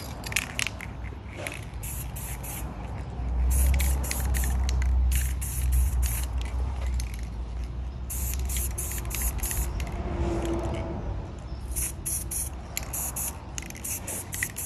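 Aerosol spray-paint can hissing in a string of short bursts with brief pauses between. A low rumble swells for a few seconds starting about three seconds in.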